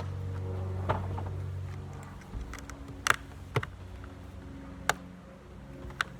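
About five sharp clicks and knocks of small parts and tools being handled while an item is taken apart for scrap, over a steady low hum.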